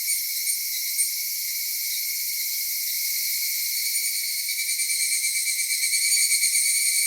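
Cicadas chorusing: a high-pitched, continuous buzzing that pulses at about three to four beats a second near the start and again from about five seconds in, steadier in between.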